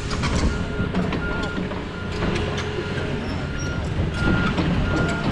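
Heavy equipment's diesel engine running, with a backup alarm beeping repeatedly, about one short beep every 0.7 s, and occasional metallic clanks.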